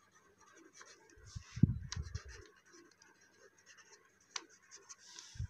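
A pen scratching across a ruled notebook page as a heading is written, in faint strokes with a few small ticks. A dull low thump comes about a second and a half in.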